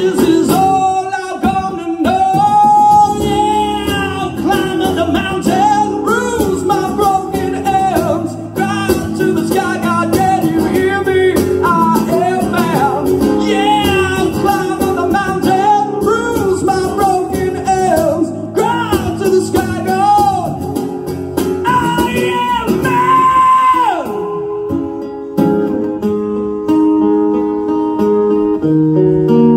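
Live unplugged rock song: a singer's voice with long, wavering held notes over acoustic guitar. Near the end the singing stops and the guitar plays on alone, picking out single notes.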